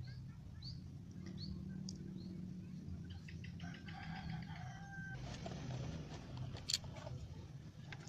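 A rooster crowing faintly: one drawn-out crow about three seconds in. A few small bird chirps come before it, and there is a single sharp click near the end.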